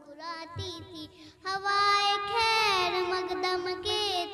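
A boy singing the opening of a naat solo, starting softly and rising about a second and a half in to long, held notes that slide down in pitch.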